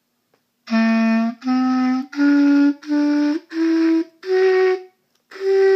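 Clarinet playing a slow ascending scale of detached notes, about one note every two-thirds of a second, each stopped before the next and rising step by step, with the top note sounded again near the end. The player says it sounds sticky and doesn't know why.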